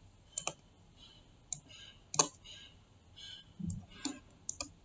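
Quiet, irregular clicks and taps of a computer input device being worked while writing by hand in a paint program, about a dozen in all, with one soft low thump near the end.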